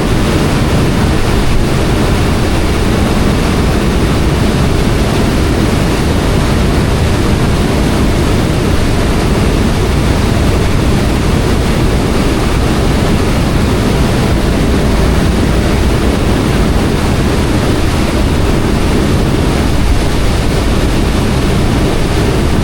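Ferry under way: a steady, loud low rumble of the boat's engine mixed with the rush of water along the hull.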